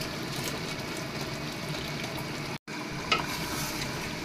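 Chicken curry sizzling steadily in oil in an aluminium pot, with a wooden spoon stirring it and knocking against the pot a few times about three seconds in. The sound breaks off for a moment just past halfway.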